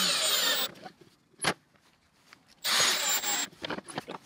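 Cordless drill with a countersink bit boring countersinks into a wooden block, running in two short bursts of under a second, one at the start and one nearly three seconds in, with a single sharp click between them.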